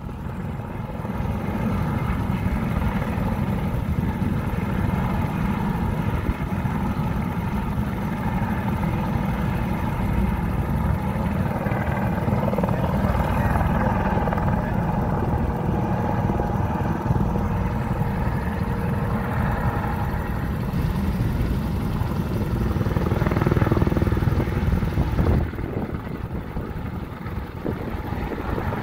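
Turbine helicopters running: a steady jet-turbine whine over the dense low rumble of turning rotors, with one helicopter in the air nearby. The noise swells over the first couple of seconds and eases slightly near the end.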